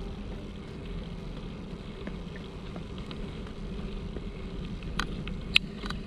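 Steady rumble of bicycle tyres rolling on a paved path, mixed with wind on the microphone, with a few sharp clicks near the end, the loudest about five and a half seconds in.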